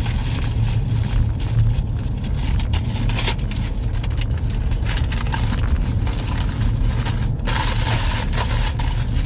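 Steady low rumble of a running car, with short bursts of scratchy noise on top; the longest burst comes about seven and a half seconds in.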